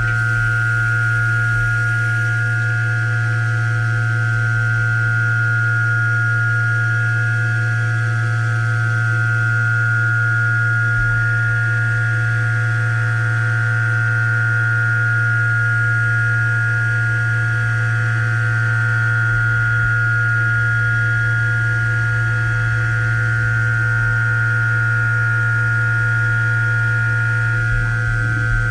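DMG MORI M1 CNC milling machine running while milling a steel part: a steady low hum with a high, steady whine over it, holding evenly throughout.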